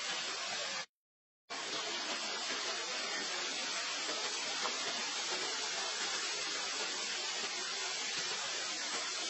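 Steady, even hiss like white noise, broken by a sudden half-second dropout to dead silence about a second in.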